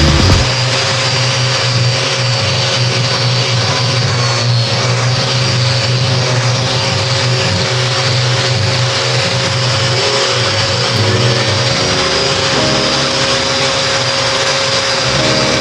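An electric machine running steadily under no change of load: a constant motor hum with a steady higher whine.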